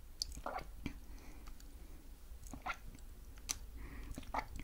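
Close-miked chewing of soft sweets, with scattered short wet mouth clicks and smacks.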